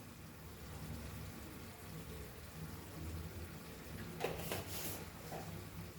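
Faint sizzling of a spiced onion masala in a pan over a low steady hum, with two brief clatters about four seconds in.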